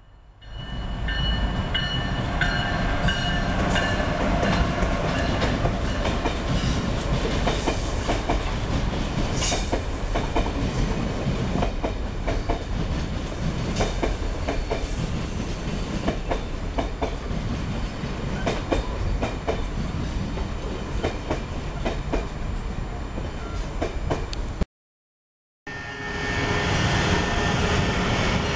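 Amtrak train of an electric locomotive and stainless-steel coaches passing at speed: a steady rumble with a dense run of clicks from the wheels. The sound cuts out for about a second near the end, then an Acela Express trainset is passing.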